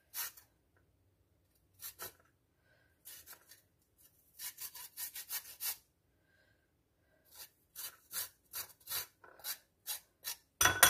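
A spoon scraping the skin off a piece of fresh ginger root, in short rasping strokes that come in two quick runs with pauses between.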